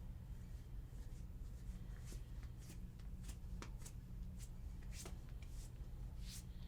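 Hands sliding and brushing over skin during a massage: a dozen or so short, faint swishes at irregular intervals over a low steady hum.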